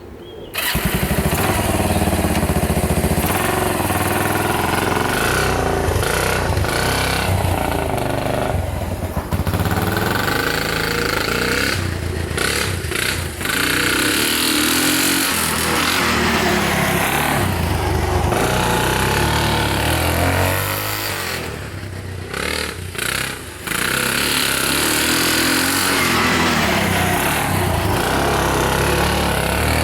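Kawasaki KLT 200C three-wheeler's single-cylinder four-stroke engine running while the machine is ridden, revving up and easing off again and again. The sound starts abruptly just after the beginning, and the throttle drops off briefly about twelve seconds in and again a little past twenty seconds.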